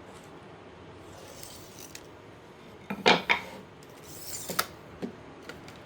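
Handling noises of a tape measure on wood: a loud clattering knock about three seconds in, then a scratchy rub and a couple of sharp clicks.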